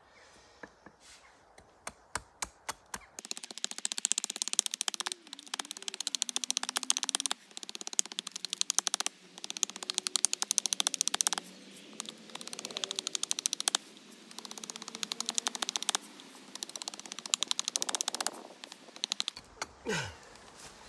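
Knife chopping a piece of sycamore branch: a few separate sharp knocks, then long runs of rapid, even taps of the blade into the wood, broken by short pauses.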